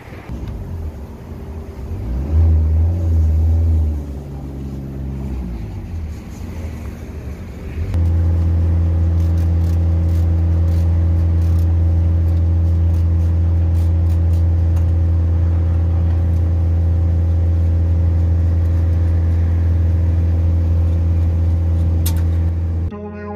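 An engine running, shifting up and down in speed for several seconds, then holding a loud, steady speed from about eight seconds in until it is cut off near the end.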